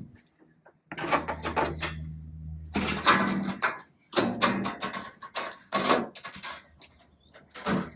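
Knocks, scrapes and rattles of a caravan's fold-out metal fittings being handled, folded and stowed, in several bursts with a low hum under the first.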